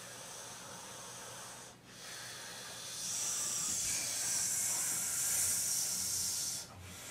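A person's breathing close to the microphone, heard as airy hissing breaths: a softer breath, then after a short break a longer, louder one lasting about five seconds.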